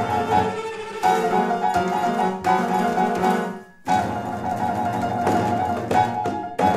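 Live contemporary classical music for bowed strings and piano: held and repeated notes that break off briefly about four seconds in, then start again.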